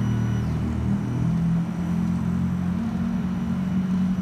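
Airbus A320-216's CFM56 jet engines rumbling overhead in a steady low drone. A thin high whine fades out about a second and a half in.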